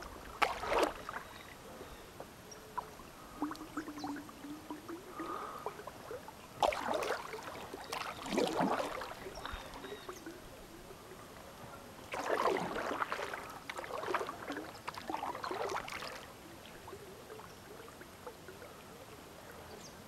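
Kayak paddle strokes: the blades dipping and splashing in calm water, in three bouts of strokes with quieter stretches between.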